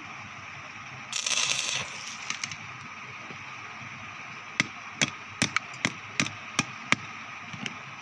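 A short crackling hiss of an electric arc welder striking an arc, lasting under a second, over the steady hum of the welding machine. A few seconds later come about eight sharp separate taps or knocks on metal.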